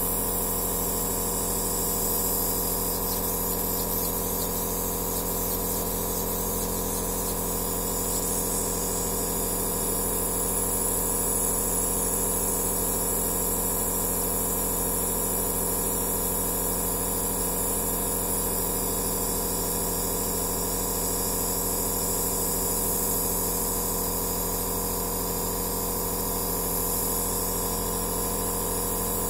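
Compressor nebulizer (aerosol therapy machine) running steadily: a motor hum made of several steady tones under an even hiss of air and mist.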